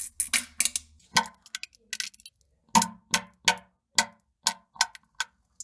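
A rapid, uneven string of short sharp fart pops, about three to four a second, with a brief pause about two seconds in.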